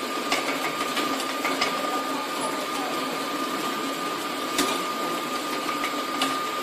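Automatic edible-oil filling line running: the stainless slat-chain conveyor and its motor make a steady mechanical noise with a constant high whine, and a few sharp clicks from the machinery or the jugs sound now and then.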